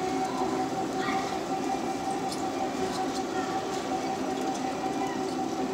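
Steady electric motor whine and rolling rumble from a motorized store cart moving along, with a few faint clicks.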